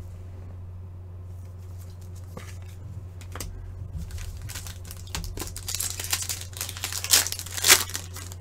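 A foil trading-card pack being torn open and its wrapper crinkled. The crackling starts a few seconds in and grows busier, with two louder crackles near the end, over a steady low hum.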